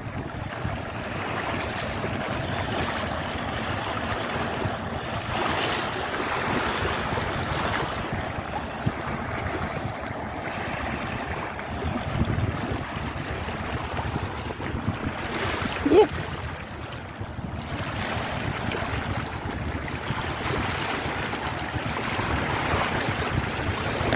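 Small sea waves washing over a stony shore, with wind buffeting the phone's microphone in a steady rushing noise that swells and eases. A brief rising squeak stands out about two-thirds of the way through.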